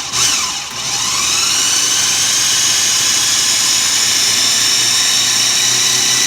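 Food processor motor running at full speed, puréeing watermelon chunks. Its whine rises over the first second and a half as it comes up to speed, then holds steady.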